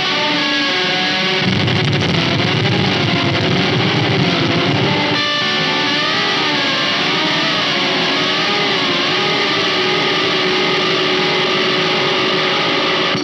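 Electric guitar played through the Intensive Care Audio Fideleater and Vena Cava Filter pedals together: sustained notes whose pitch wobbles up and down with the modulation. A heavier low end comes in about a second and a half in and drops away about five seconds in.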